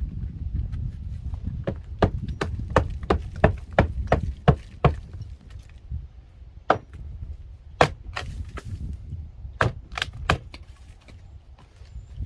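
Hammer blows on wood framing: a quick run of about a dozen sharp strikes, then a few spaced single blows later on.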